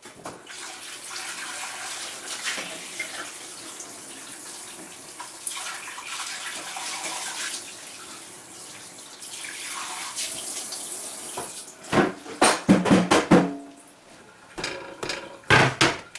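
Water running from a kitchen tap for about eleven seconds, then two short clusters of sharp knocks and thuds.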